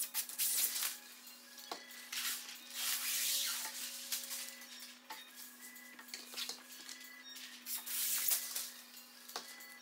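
Frosted window film being rubbed and pressed down onto glass garage-door panels by hand and with an edge card: scraping strokes, three longer ones about half a second in, around three seconds in and near eight seconds in, over a faint steady hum.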